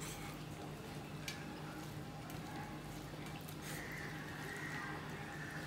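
Eating with the fingers: rice and curry squished by hand on a steel plate and chewed, with a few sharp mouth clicks, over a steady low hum. A thin high tone comes in for about the last two seconds.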